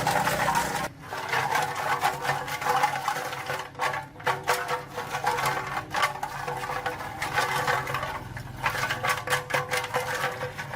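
A small machine running with a rapid clatter over a steady hum, stopping briefly and starting again several times.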